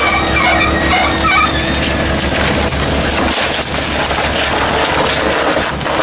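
Hydraulic scrap car baler running, its ram pushing a compacted car bale out of the press, with short high squeaks from the squeezed metal in the first second or so. The machine's steady tone drops away about three seconds in, leaving a lower hum.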